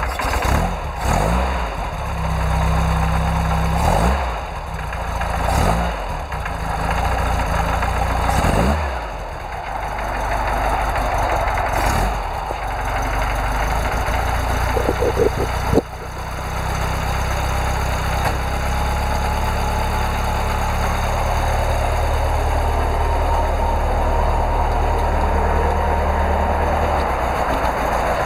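Air-cooled Volkswagen flat-four engine of a Baja Bug, just started, revved in about five short blips during the first dozen seconds, then idling steadily.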